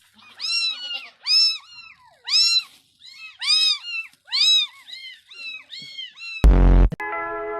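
A cat meowing over and over: about ten short, high-pitched meows, each rising then falling in pitch. Near the end comes one short, loud, booming blast.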